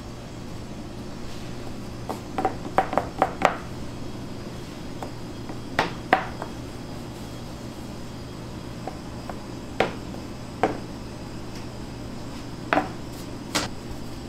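Sharp knocks and clinks of bakery tools and trays being handled, over a steady low hum. A quick run of five comes about two seconds in, then single or paired knocks every second or two.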